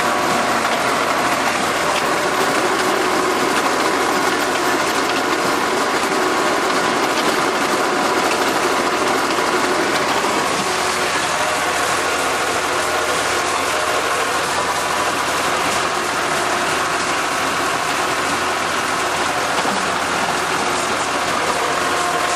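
Small tractor's engine running steadily, heard close from the driver's seat, as the tractor pulls a furrowing plow through the soil, with mechanical rattle from the machine.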